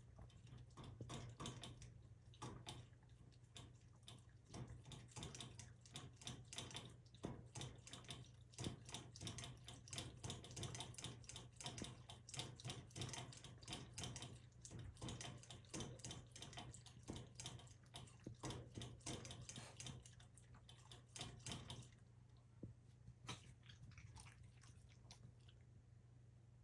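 A Pomeranian–Shiba mix dog lapping water, a fast run of quiet wet laps several times a second that stops about 22 seconds in.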